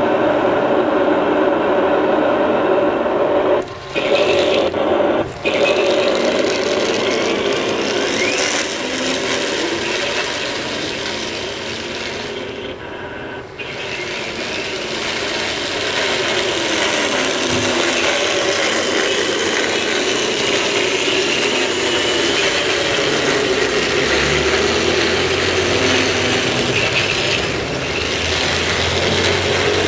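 1/16 scale metal RC M60 tank on the move: geared drive motors whirring while the metal tracks and running gear rattle. The motor pitch rises and falls with speed, and the sound dips briefly a few times as the model stops and starts.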